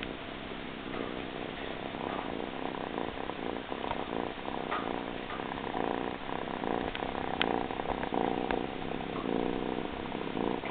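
Tabby kitten purring steadily, the purr growing louder about halfway through as it settles down to lie on a pillow.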